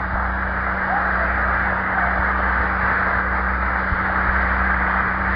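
Audience applauding steadily, on a dull old recording with a low mains hum underneath.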